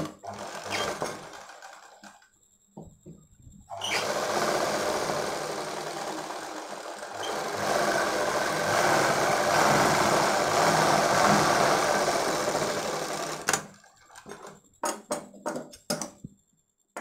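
Sewing machine running and stitching fabric for about ten seconds, picking up speed partway through, then stopping, followed by a few sharp clicks.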